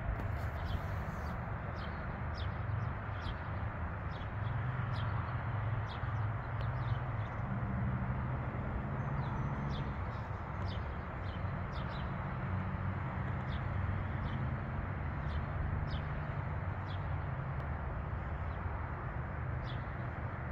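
A small songbird chirping over and over, short high notes that drop in pitch, about one a second, over a steady low rumble and hiss.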